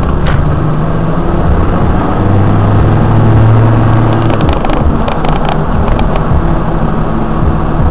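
Land Rover Defender 90 Td5's five-cylinder turbodiesel engine running under way, with road noise. The engine note swells about two seconds in and eases off again after a couple of seconds.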